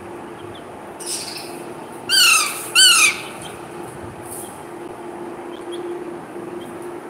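Parrot giving two loud squawks about two seconds in, each rising then falling in pitch.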